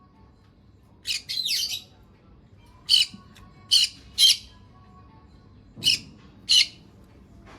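Small pet parrot giving short, shrill squawks: a quick run of three or four calls about a second in, then single sharp calls spaced roughly a second apart.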